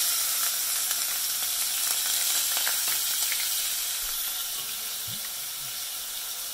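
Finely chopped onion sizzling as it starts frying in hot ghee and oil, a loud, even frying hiss that begins abruptly and eases slightly after a few seconds, with a couple of light clicks.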